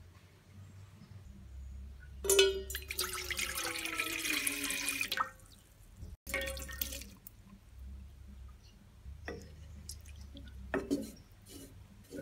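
Water running from a tap into a bowl of soaking agar-agar strands for about three seconds, with a rising ring as the bowl fills. Just after six seconds, a short splash as the agar-agar and its water are poured into a steel pot, and near the end a few light knocks.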